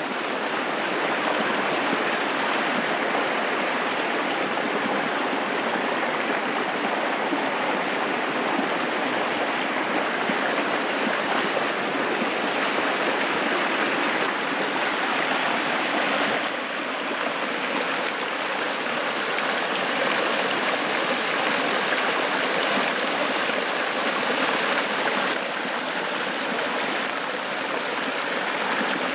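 Steady rush of running water from a small waterfall splashing down a fern-covered rock wall and a shallow creek. It shifts slightly in level a couple of times.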